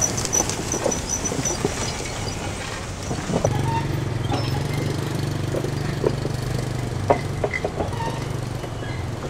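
Sugar mill yard ambience: a steady low machinery hum sets in a few seconds in, over a noisy background with scattered clanks and knocks.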